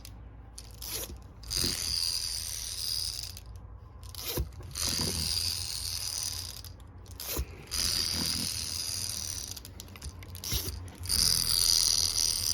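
Infantino Jittery Pal unicorn baby toy jittering and jingling: stretches of high rattling lasting a second or two, broken by short pauses and a few sharp knocks.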